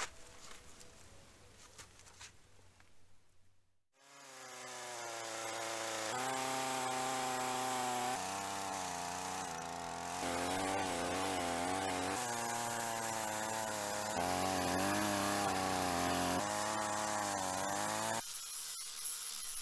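A handheld electric power tool running with a steady whine, its pitch wavering as it bears on the wood, heard in a string of short clips that jump every couple of seconds. The first few seconds hold only a faint low hum.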